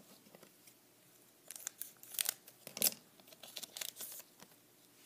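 Foil wrapper of a Black Edition baseball card pack being torn open by hand, crinkling and ripping in a run of quick bursts from about a second and a half in, loudest just before three seconds.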